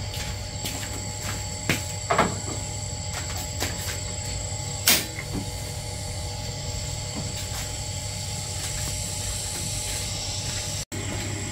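A few short clicks and knocks, the loudest about five seconds in, over a steady low hum.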